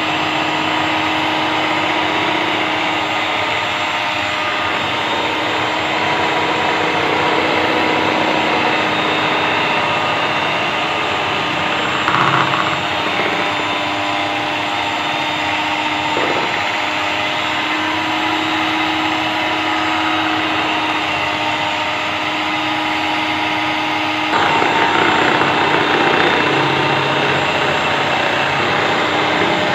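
Electric mixer whipping cream, its motor running with a steady whine. It grows louder and rougher about five seconds before the end.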